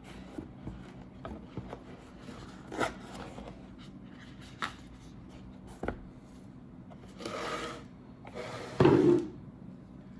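Handling noise as a two-tone stainless steel bracelet watch is worked off the cushion of its presentation box with cotton-gloved hands: fabric rubbing and scraping against the box, with scattered small clicks from the bracelet links. A rustle comes about seven seconds in, and the loudest, brief burst of handling noise about nine seconds in.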